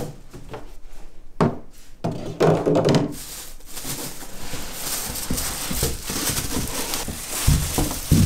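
Hard plastic cat-slide panels being lifted out of a cardboard box: scattered knocks and thunks of plastic against cardboard, then a steady rustle of packaging in the second half, with a couple of low thumps near the end.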